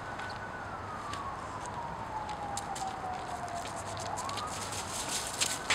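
A distant siren wailing: one clean tone sliding slowly down over about four seconds, then rising again near the end. Light ticks and scuffs of steps on the icy driveway sit underneath, with a sharper one near the end.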